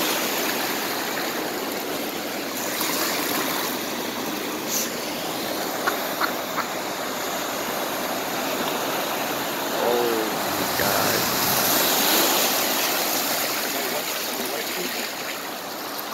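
Floodwater rushing and splashing across a flooded street, a steady, even wash of running water.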